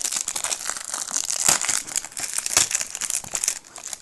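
Plastic shrink-wrap being torn open and peeled off a Blu-ray case: a dense, continuous crinkling and crackling of thin cellophane, dipping briefly near the end.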